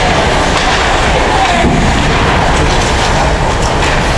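Steady loud rumbling din of a game in a sports venue, with faint voices mixed in.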